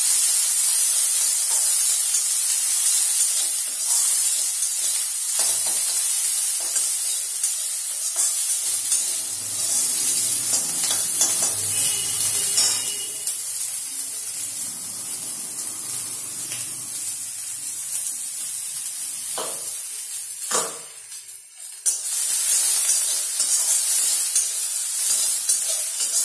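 Sliced onions sizzling in hot oil in a kadai, with a metal spatula stirring and scraping against the pan now and then. The sizzle briefly drops away near the end, then comes back.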